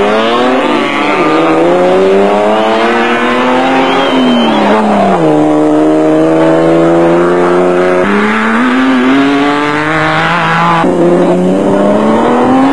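Off-road race vehicle engines accelerating hard, the pitch climbing through the gears again and again, held high and steady for a few seconds in the middle. The engine sound changes abruptly twice, near two thirds of the way through and again towards the end.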